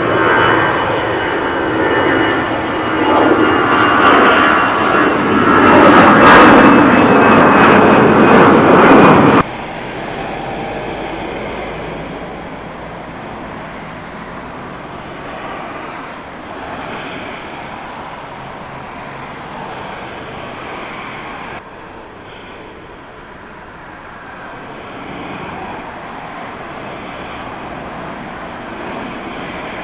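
Twin-engine Airbus A320-family jet climbing out after takeoff: loud jet engine noise with a high whine slowly falling in pitch, cut off suddenly about nine seconds in. After that, quieter steady jet engine noise from airliners on and near the runway.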